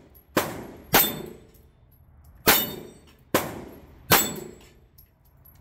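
Five pistol shots, spaced from about half a second to a second and a half apart, each answered by the clang of a steel dueling-tree paddle being hit, with a short metallic ring after each.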